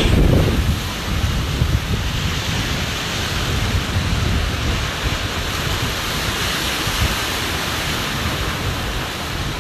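Steady wind rumbling and hissing on the microphone.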